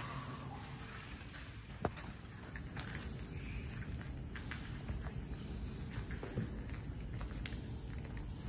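Night insects chirring steadily in high-pitched bands, with scattered sharp clicks and ticks, one sharp click about two seconds in.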